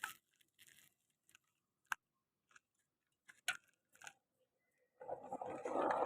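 Scattered short scrapes and crunches of road-repair work. About five seconds in they give way to a continuous crunching, scraping clatter.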